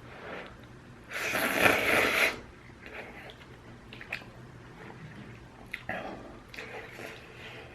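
A loud slurp of ramyun noodles or broth lasting about a second, then quieter chewing with small wet clicks.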